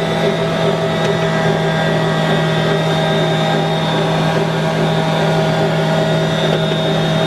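Electric mixer running steadily, kneading a yeast dough for cinnamon rolls, with an even motor hum.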